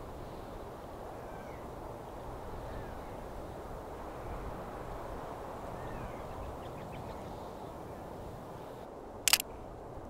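Steady open-air background noise with faint, distant bird calls now and then, and one sharp click about nine seconds in.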